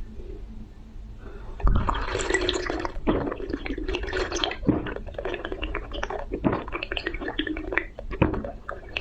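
A person drinking close to the microphone: wet liquid sounds in repeated bursts, broken by a low thump about every one and a half to two seconds, starting about a second and a half in.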